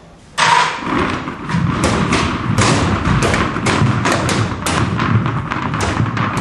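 Dozens of tennis balls bouncing down a staircase and onto a hard floor: a dense, irregular clatter of thumps that starts suddenly about half a second in.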